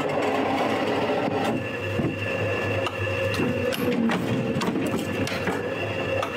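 Industrial guillotine paper cutter running: a steady machine hum with a constant high whine, broken by sharp clacks about once a second as stacks of paper are handled and cut.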